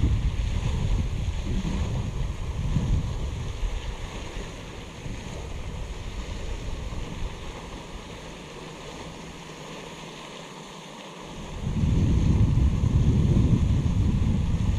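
Wind buffeting a GoPro action camera's microphone: a low rumble in gusts that eases for several seconds in the middle and comes back strongly near the end.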